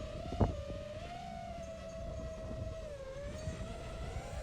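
FPV quadcopter's brushless motors and propellers whining in flight, the pitch wavering up and down with throttle and dipping about three seconds in. A short knock sounds about half a second in.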